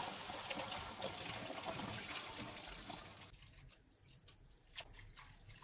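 Milk poured from a jug into a wok of hot caramelized sugar: a steady hissing pour that fades and drops away after about three seconds, then a few faint ticks near the end.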